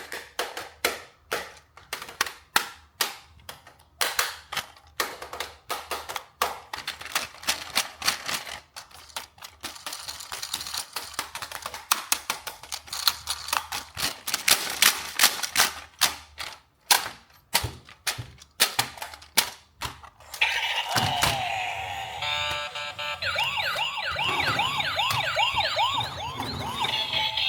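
Rapid, irregular clicking and tapping of plastic toy parts and packaging being handled. About twenty seconds in, a toy's electronic siren sound starts: a quick repeating up-and-down wail over other electronic effect tones.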